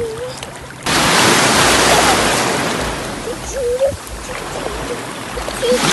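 Small waves washing and breaking in shallow sea water. The wash swells suddenly about a second in, eases off, and swells again near the end.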